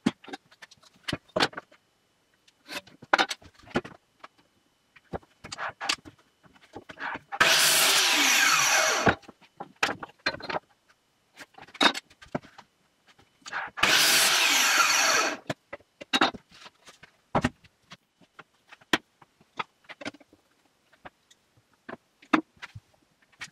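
Metabo miter saw making two short cuts through a spruce board, each a loud steady run of about a second and a half to two seconds, a few seconds apart. Knocks and clatter of boards being handled and positioned fill the gaps.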